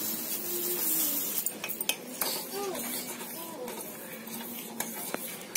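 A soft hiss as sugar is poured into a pan of sago cooking in milk, then a steel spoon stirring and clinking repeatedly against the pan.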